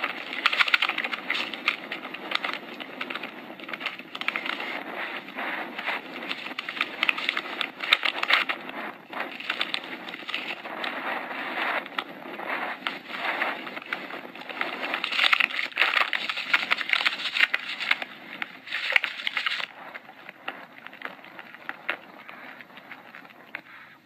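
Snowmobile ride audio played back through a small speaker: a crackling, rushing noise of wind and sled, dense with clicks. It drops away abruptly a little before twenty seconds in and fades quieter after.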